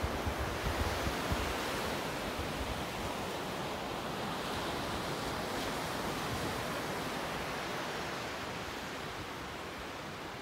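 Small waves breaking and washing up a sandy beach: a steady hiss of surf that swells around the middle and eases off toward the end. Some wind buffets the microphone in the first second or so.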